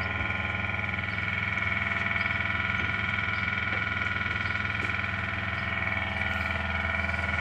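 Ship's machinery running steadily: a constant low drone with several steady higher tones over it, unchanging throughout.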